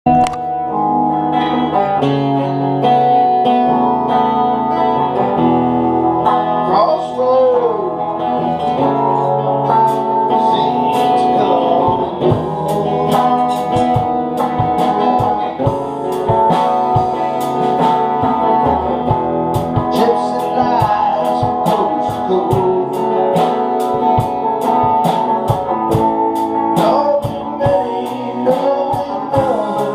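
A song with guitar and a singing voice, including some sliding vocal pitches. In the second half, sharp regular strikes come in, most likely strummed guitar.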